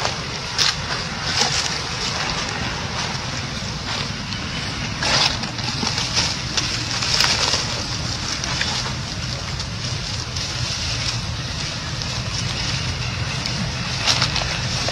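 Monkeys scuffling in dry leaf litter: brief dry rustles several times over a steady outdoor hiss.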